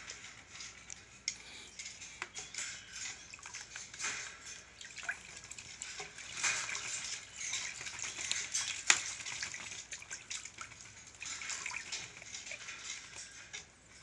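Purple swamphen bathing in a plastic basin of water: irregular splashing and dripping as it dips and flicks water over itself, busiest about halfway through.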